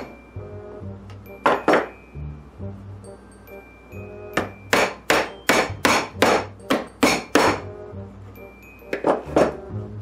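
Hammer tapping tiny nails through a sawtooth picture-hanger bracket into the back of a wooden sign: two taps, then a quick run of about ten taps at roughly three a second, then two more near the end. Soft background music plays underneath.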